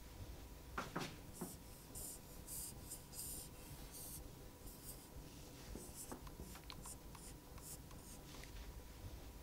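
Marker pen drawing on a whiteboard: faint, short strokes in two runs with a pause about halfway.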